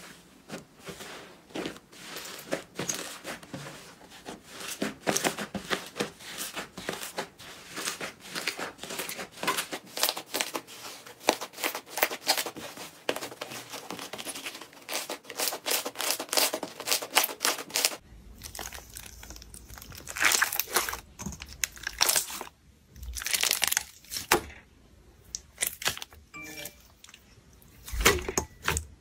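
Slime worked by hand, giving a dense run of small crackles and pops. About two thirds of the way through it switches to slower, louder bursts of crackling over a low hum.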